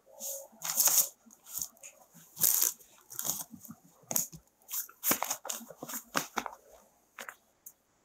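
Paper rustling and crinkling as a sheet of ruled paper is moved and handled, in irregular crackly bursts, loudest about a second and two and a half seconds in.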